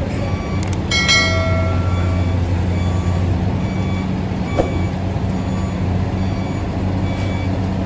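Heavy diesel engine running steadily, with a sharp metal clang about a second in that rings briefly and a lighter knock past the middle.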